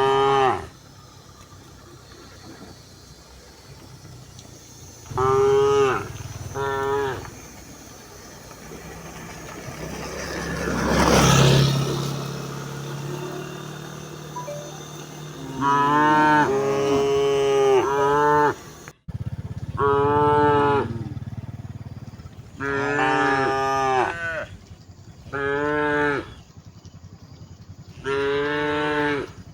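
Cattle mooing: a series of short calls, some in quick pairs, coming thicker in the second half. About ten seconds in, a rush of noise swells up and fades over a couple of seconds.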